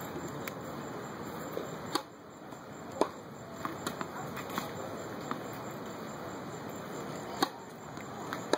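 A tennis ball bounced on a hard court and struck with a racket on practice serves: a handful of sharp pops a second or more apart, the loudest about three seconds in and about seven and a half seconds in.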